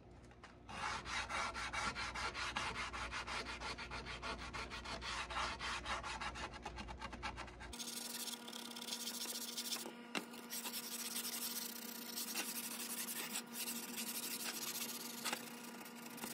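A wooden frame being hand-sanded, the sanding pad rubbed back and forth in quick, even strokes. The rhythm is most regular during the first half.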